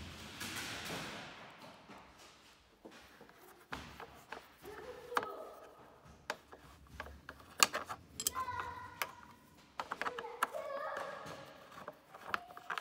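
Metal clicks and taps of an L-shaped Torx key working screws out of a motorcycle's fairing, a scattered string of sharp clicks with short quick runs.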